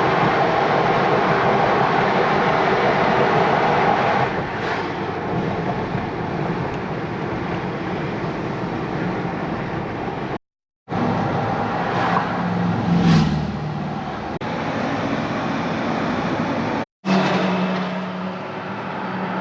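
A car driving: steady road and engine noise, broken twice by a brief cut to silence.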